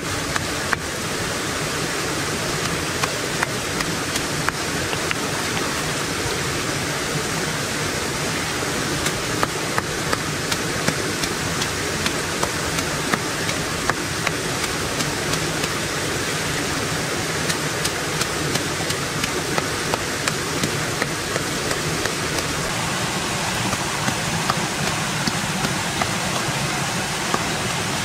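Shallow rocky stream running steadily, with repeated sharp knocks of a stone pounding a bundle of leaves against a rock in the water, about one or two a second: crushing the leaves to release their fish-stunning toxin.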